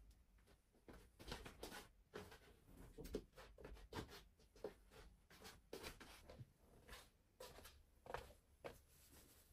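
Faint, irregular light taps and clicks, roughly two a second, as of small objects being handled.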